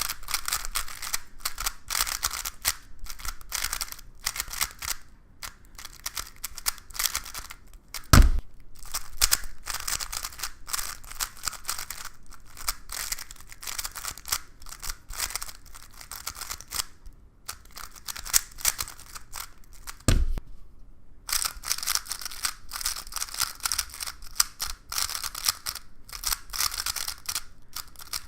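Plastic speed cube being turned quickly, a dense run of clicking and clacking as its layers snap past each other, with short pauses. A single low thump comes about 8 seconds in and another about 20 seconds in.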